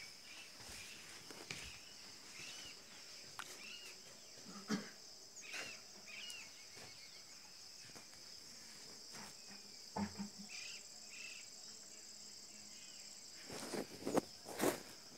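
Steady, high-pitched insect drone with a few short chirps over it, and scattered knocks and rustles that are loudest near the end.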